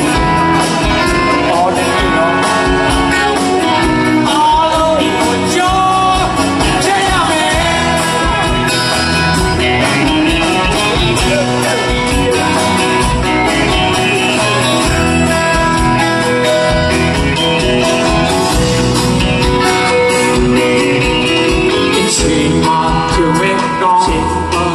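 Live band music, played loud through a PA: a man singing over acoustic guitar, with bass and drums keeping a steady beat.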